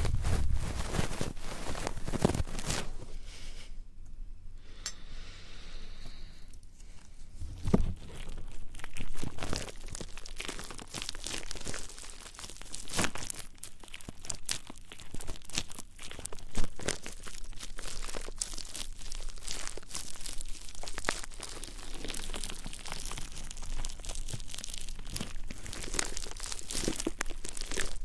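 Close-up ASMR ear-cleaning and ear-rubbing sounds on the microphone: dense crinkly scratching and rustling, with a brief quieter lull about four seconds in.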